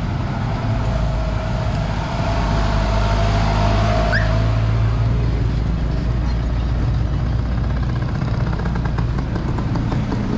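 Motor vehicle engine running nearby, a steady low hum amid street noise, with a brief rising squeak about four seconds in.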